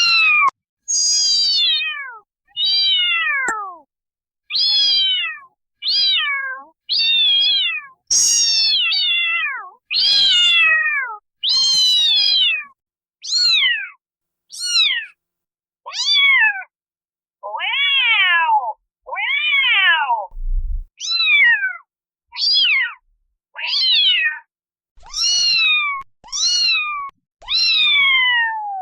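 Kittens meowing: a string of about twenty short, high-pitched meows, one after another with brief silent gaps, most sliding down in pitch. A little past halfway, two lower meows rise and then fall.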